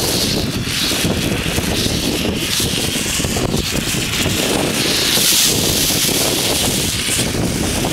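Steady rushing hiss of a burning red marine hand flare mixed with wind buffeting the microphone. The hiss grows louder about five seconds in.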